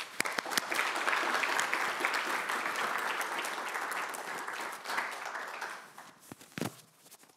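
Audience applauding, fading out about six seconds in, followed by a couple of short knocks near the end.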